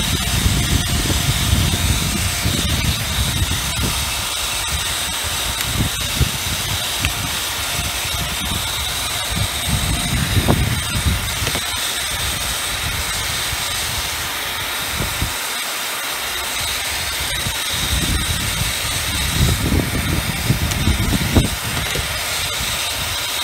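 Hoover WindTunnel Air Pro upright vacuum's motor running with a steady hiss and a high whine, on a machine that has no suction. Low rumbles and a few knocks come and go as it is handled.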